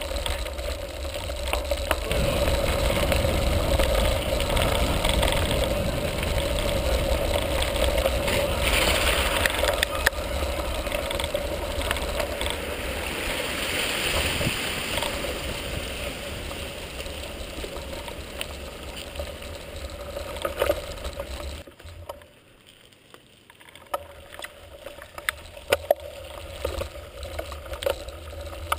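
Riding noise picked up by a bike-mounted action camera as a mountain bike rolls over a gravel track: a steady rumble of tyres on gravel and wind on the microphone, with scattered knocks and rattles from bumps. The noise drops away briefly about three-quarters of the way through.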